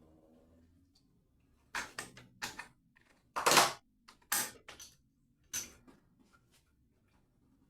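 Sharp clicks and knocks from tools and tap fittings being handled: a quick run of them around two seconds in, the loudest and longest about three and a half seconds in, and a few more before six seconds.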